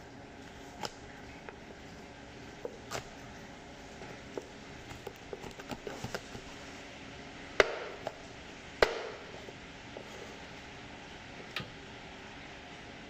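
Kitchen knife cutting and chopping through a crispy deep-fried duck, knocking against a plastic cutting board: irregular sharp knocks, a quick run of them in the middle and the two loudest a little later.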